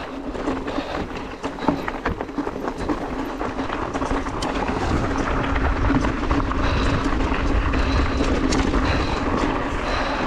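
Turbo Levo electric mountain bike rolling down a rocky gravel trail: tyres crunching over loose stones while the bike rattles and knocks over bumps. A low rumble grows louder from about halfway through.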